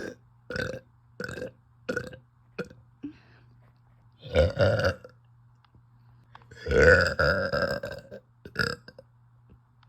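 A woman belching, gassy from carbonated soda: five short burps in quick succession, then a longer burp about four seconds in, and a long, loud one about seven seconds in, followed by one more short burp.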